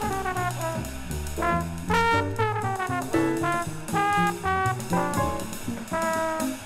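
Modern jazz: a brass horn plays a lead line of short notes and falling slides over bass and drums.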